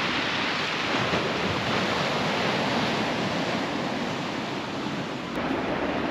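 Steady wash of ocean surf on a rocky shoreline, with wind rumbling on the microphone.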